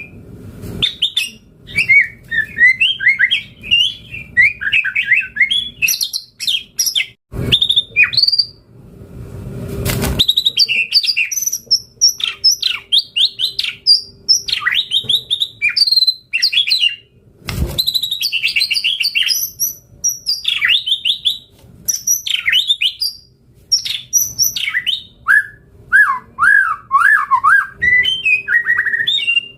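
White-rumped shama (murai batu) singing vigorously: a fast, unbroken run of varied whistled sweeps and chattering phrases, the full-repertoire song that keepers call gacor. A few sharp knocks sound about 7, 10 and 18 seconds in.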